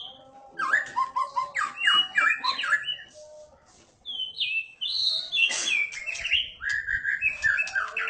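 White-rumped shama (murai batu) in full song: fast runs of varied whistled notes and sweeping phrases. It pauses briefly about three seconds in, then starts again.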